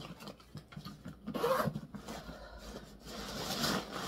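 Leather tote bag being handled: scratchy rubbing and rustling in two main spells, about a second and a half in and again near the end.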